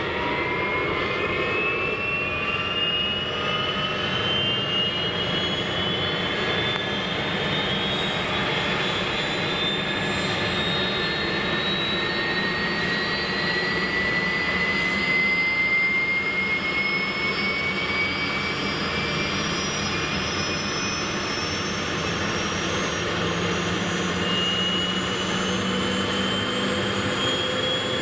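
AS532 Cougar helicopter's twin turboshaft engines starting up, with several whining tones climbing slowly and steadily in pitch as they spool up. Its main rotor begins to turn.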